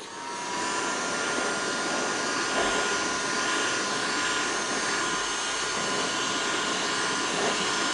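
Hot air gun switched on and running: a steady fan rush with a faint whine that rises slightly as the motor spins up, then holds level, blowing heat onto a clear plastic sheet to soften it.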